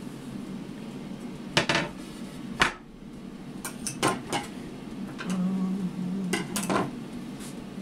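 Clattering knocks of a glass serving board being set down and shifted on a wooden table, five or so sharp strikes, over the steady hum of an air fryer running.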